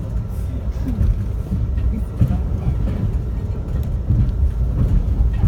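Inside a moving Amtrak Empire Builder passenger car: a steady low rumble from the train running along the track, with small irregular knocks and rattles.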